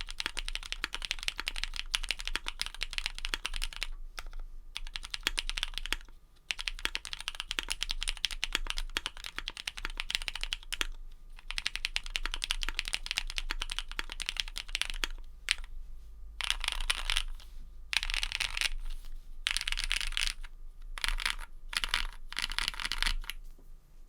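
Typing on a custom mechanical keyboard with lubed linear switches (Cherry MX Black housings with Kailh red stems), an aluminium plate and PBT keycaps: fast, even clacking. After about fifteen seconds the typing breaks into shorter bursts with pauses between them.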